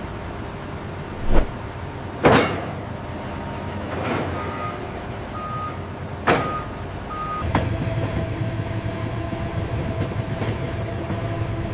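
Industrial machinery: several heavy clunks and a few short beeps, then a machine starts up and runs with a steady drone and hum about two-thirds of the way in.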